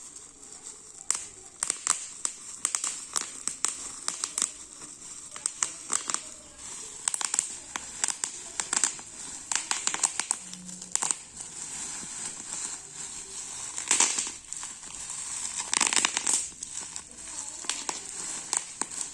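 Bubble wrap being popped and crinkled: irregular sharp pops, some in quick clusters, over the crinkling of the plastic, with louder bunches of pops about fourteen and sixteen seconds in.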